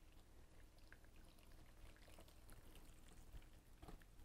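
Faint pouring of elderberry tea from a stainless steel saucepan through a damp cloth-lined sieve: a soft, muffled trickle with scattered small drips.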